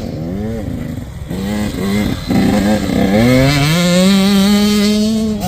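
85cc two-stroke dirt bike engine revving through short bursts, then accelerating hard about three seconds in, its pitch climbing and holding high at full throttle.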